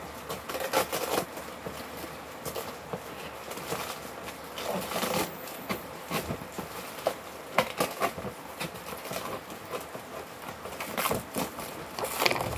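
Black plastic parcel wrapping crinkling and rustling in short, irregular crackles as it is picked at and pulled by hand.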